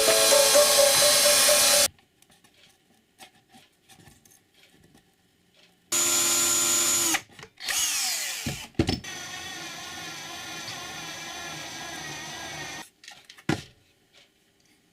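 Background music that cuts off about two seconds in, then an electric power drill running on and off: a short run, a run whose motor speeds up and slows down, and a steadier run of about four seconds that stops suddenly, followed by a single click.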